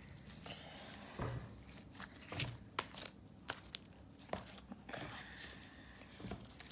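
Faint, irregular sticky crackles and soft squelches of green slime being pulled and squeezed off a child's hand.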